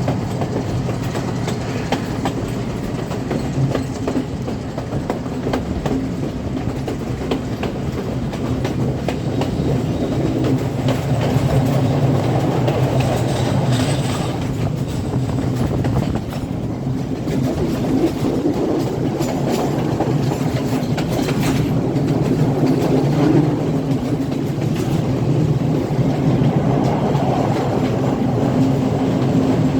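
Passenger express train running along the track: a steady low rumble of wheels on rail with the clickety-clack of rail joints, growing a little louder about halfway through.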